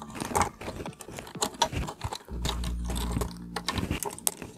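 Small electric screwdriver running for about a second, a little over two seconds in, driving M3 screws into T-nuts, among light clicks and taps of plastic parts and screws being handled.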